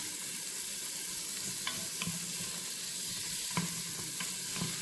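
Dry-fried mutton sizzling in the inner pot of a Noxxa electric pressure cooker on its stir-fry setting, stirred with a spoon that knocks and scrapes against the pot about five times. The meat is nearly dry, at the end of frying.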